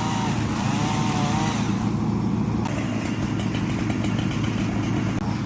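An engine running steadily, its pitch wavering up and down in the first second and a half; the sound changes abruptly about halfway through.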